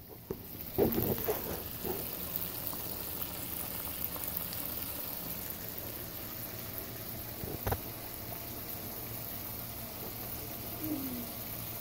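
Hot oil bubbling and sizzling steadily in a pot as food deep-fries, with a couple of light knocks.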